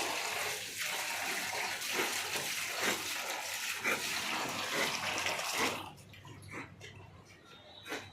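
Water running or spraying steadily, cutting off suddenly about six seconds in, after which a few short separate sounds are heard.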